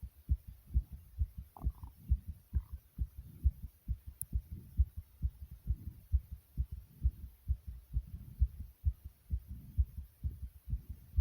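Human heartbeat beating fast: a quick, even run of low, dull thumps, several a second.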